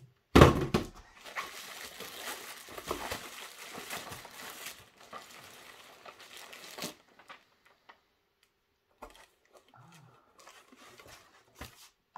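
Plastic bubble wrap rustling and crinkling as it is pulled out of a cardboard shipping box. A sharp knock comes about half a second in, then dense crinkling lasts several seconds before dying down to scattered light rustles.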